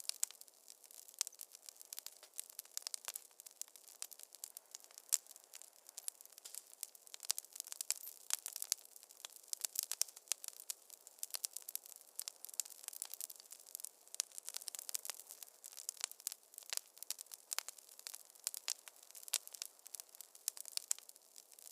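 Wood fire in a fireplace crackling: a dense, irregular stream of small sharp snaps and pops over a soft hiss.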